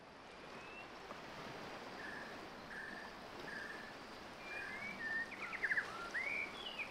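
Outdoor ambience fading in: a steady hiss with birds calling over it. A short whistled note repeats about once a second, then quick trills and rising chirps come in from about five seconds in.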